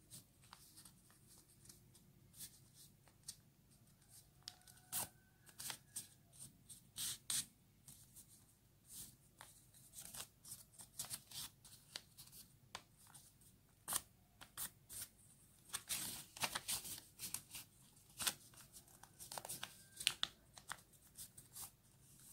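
Sheet of A5 paper being folded and its crease smoothed by hand: faint, irregular rustling and crinkling with scattered sharp crackles.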